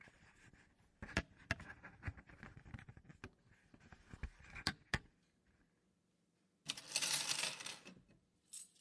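Playing a slot machine: coins clink and drop in a string of irregular sharp clicks, then a rattling rush lasting about a second near the end.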